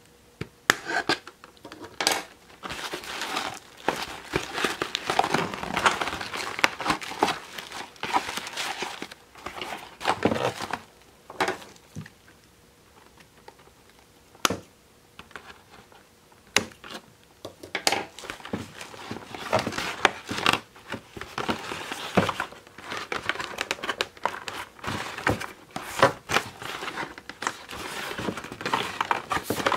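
Cardboard and plastic doll packaging rustling and crinkling as it is cut and pulled apart with scissors, with many sharp snips and clicks. The rustling goes quiet for a couple of seconds about midway.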